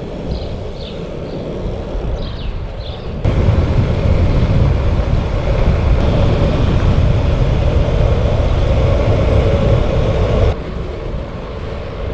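Wind buffeting the microphone of a camera on a moving road bike, with road and tyre noise; a few short high chirps sound in the first three seconds. About three seconds in the wind noise jumps much louder and stays so for about seven seconds before dropping back.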